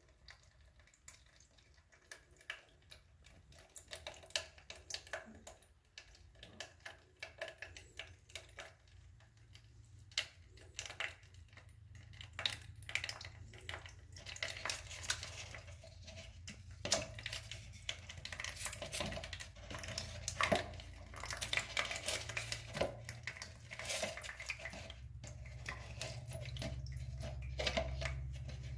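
Irregular metallic clinks and knocks of tools and metal plumbing fittings being handled, with a low steady hum that grows louder in the last few seconds.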